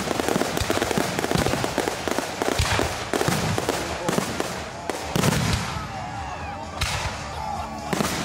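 Fireworks going off: a dense run of crackling reports, then a heavier bang about five seconds in and two more sharp bangs near the end.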